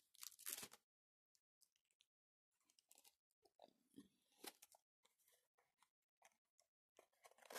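Near silence: room tone with a few faint, scattered rustles and ticks.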